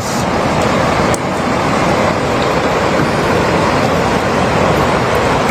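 Floodwater rushing, a steady loud noise that stays even with no breaks.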